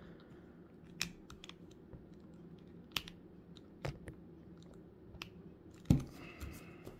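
Hard plastic clicks and knocks from a jointed action figure being handled while its swappable hands are pulled off and pushed onto the wrist pegs. A handful of separate sharp clicks, the loudest about six seconds in.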